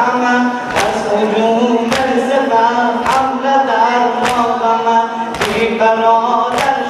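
Male voices chanting a noha mourning lament while a crowd of men beat their chests in unison, a sharp communal slap about once every 1.2 seconds (sinazani).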